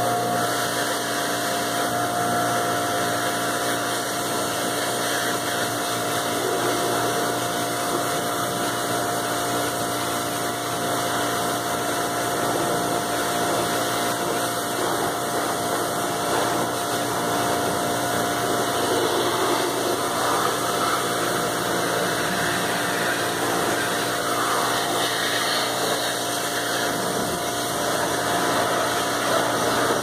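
Stihl RE 109 electric pressure washer running steadily: its motor and pump hum under the hiss of the water jet while rinsing a car with plain water before the soap.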